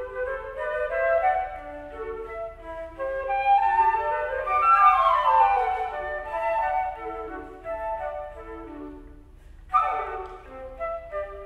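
Two flutes playing a duet of quick, short notes, the two parts running in opposite directions and loudest in the middle. After a brief gap near the end, both come back in with a sharp loud attack.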